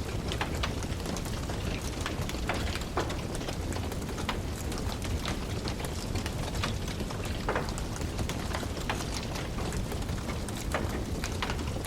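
Wood fire burning in a fireplace: irregular crackles and pops, a few a second, over the steady low rumble of the flames.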